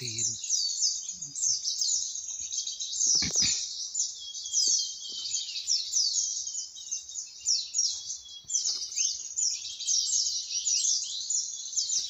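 Many small birds chirping at once in a dense, continuous chorus of quick, high chirps that sweep downward. A brief low knock about three seconds in.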